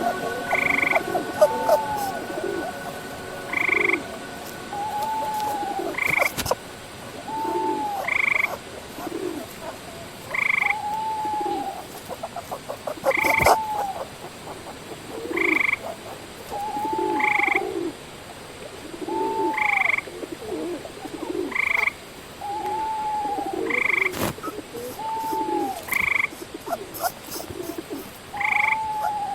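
Frogs croaking in an even rhythm, a call about every two seconds, with a few sharp clicks.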